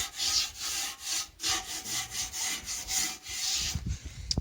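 Rhythmic back-and-forth scraping, a hand tool rubbing against a surface at about two strokes a second, tailing off near the end.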